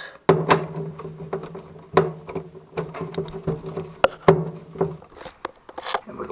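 A cordless drill runs steadily for about five seconds, backing out sheet-metal screws, with sharp metallic clicks and knocks along the way. It stops shortly before the end, leaving a few light ticks.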